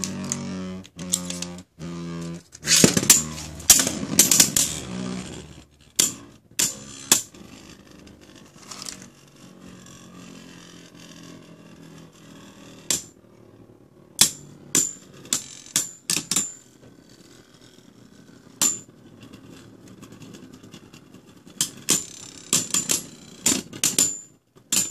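Two Beyblade Burst spinning tops ripped off a string launcher, then spinning in a plastic stadium with a steady whir and sharp plastic clacks as they collide. The clacks come singly through the middle and in a quick cluster near the end.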